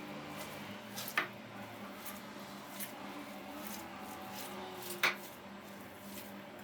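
Hands kneading raw minced meat and onion in a bowl: faint, soft squishing, with two sharp clicks, one about a second in and another about five seconds in.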